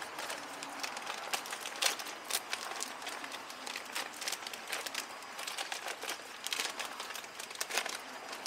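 Irregular light clicks, taps and knocks of parts being handled during an automatic transmission filter change.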